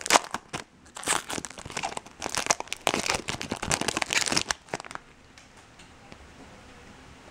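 Foil trading-card pack wrapper crinkling and tearing as it is opened by hand, a dense run of crackles that stops about five seconds in.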